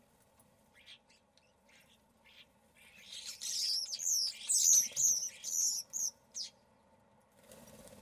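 Common starlings calling: a run of quick, high chirps that fall in pitch, starting about three seconds in and lasting about three seconds, after a few faint ticks. A brief soft rush of wings near the end as the birds fly off.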